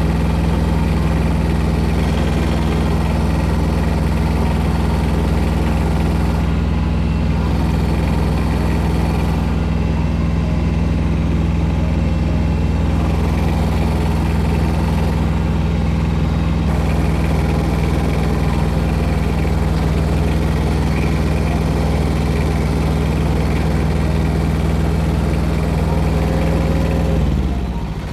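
An engine running steadily at one speed, then slowing down near the end.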